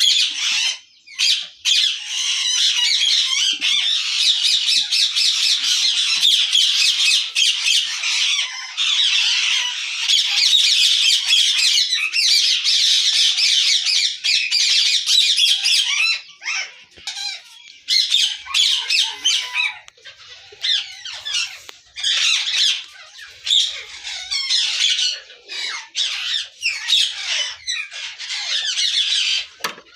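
A colony of ring-necked parakeets screeching and squawking, many birds at once in dense high-pitched chatter. About halfway through the calling breaks up into separate bursts with short pauses.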